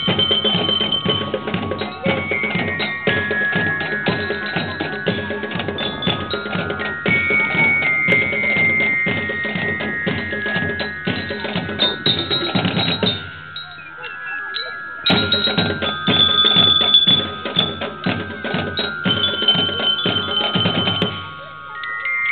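Marching percussion band of glockenspiels and drums playing a tune: ringing bell-like melody over a steady drumbeat. The playing stops briefly about 13 seconds in, then again near the end.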